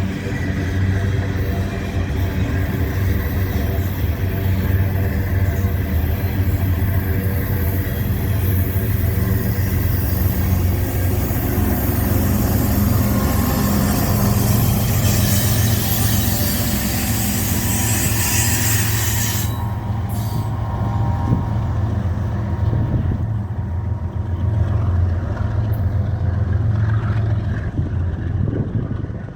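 An empty freight train's cars rolling by on steel wheels and rails, a steady loud rumble with a hiss over it. About twenty seconds in, the high-pitched hiss cuts off abruptly and a lower rumble carries on.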